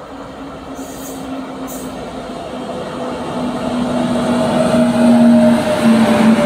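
Electric locomotive at the head of an express passenger train approaching at speed and passing close by, its hum and the rumble of wheels on rail growing steadily louder. The hum drops in pitch as the locomotive goes past near the end.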